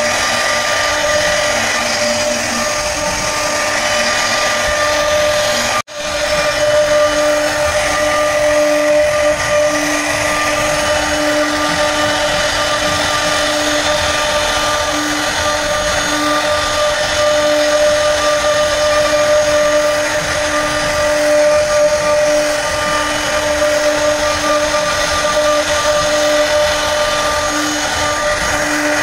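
Electric power tool carving wood, its motor running steadily at a constant high whine. The sound cuts out abruptly for a moment about six seconds in, then resumes.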